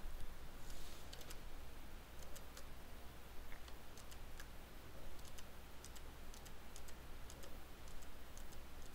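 Faint, irregular clicks of a computer keyboard and mouse over a low steady hum.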